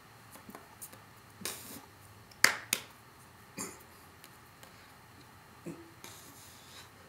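Scattered small noises of a person signing with the hands: hands slapping and brushing together, with two sharp slaps close together about two and a half seconds in.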